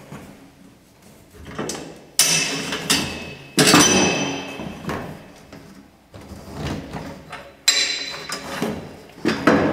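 Ratcheting load locks being released and shifted against a trailer's corrugated aluminum wall: several sharp metallic clanks and clatters, each ringing off briefly, the loudest about a third of the way in.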